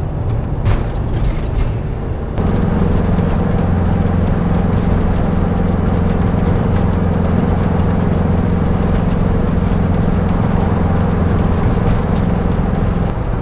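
Steady engine drone and tyre noise heard inside a moving motorhome cab. It jumps louder about two seconds in, when the vehicle is running faster on a dual carriageway.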